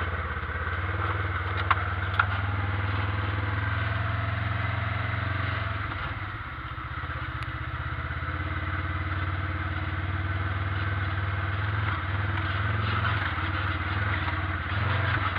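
ATV engine running steadily as it rides over a bumpy old railroad bed. The engine eases off briefly about six seconds in, and two sharp knocks come about two seconds in.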